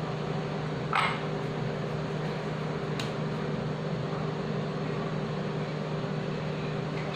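Steady electrical hum of a running appliance, with two faint clicks, about a second in and again at three seconds.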